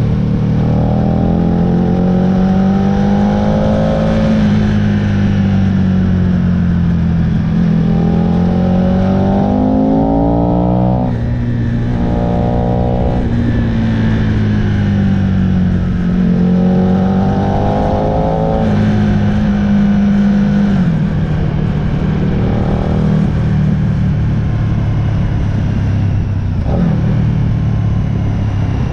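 Aprilia RSV R motorcycle engine under way at road speed, heard onboard over wind rush. Its revs rise and fall with the throttle, and the pitch drops suddenly about a third of the way in and twice more later, as at gear changes or a closed throttle.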